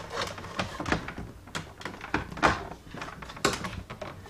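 Black plastic center console of a 2006 Ford Mustang bumping and knocking against the parking brake handle and surrounding trim as it is worked up and out: a series of irregular clunks and clicks.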